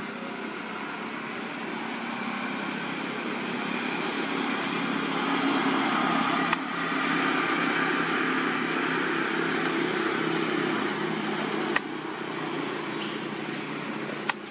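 Steady background noise with a low hum, swelling through the middle and easing again, broken by three sharp clicks, two of them near the end.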